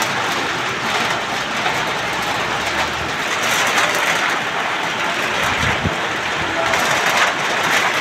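Heavy rain pouring steadily, a dense, even hiss.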